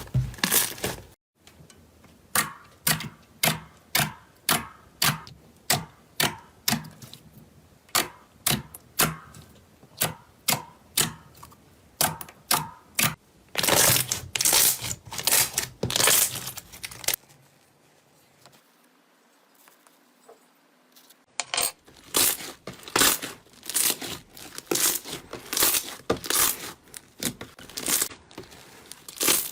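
Slime being squeezed and pressed, giving repeated crackling, popping squishes about two a second, with a quieter stretch a little past the middle.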